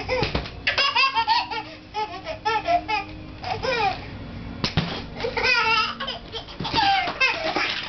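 A baby laughing in repeated high-pitched bursts of giggles and belly laughs, with a sharp knock a little after halfway.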